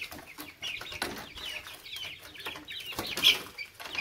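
Month-old chicks peeping over and over, short high calls several a second, with one louder burst about three seconds in.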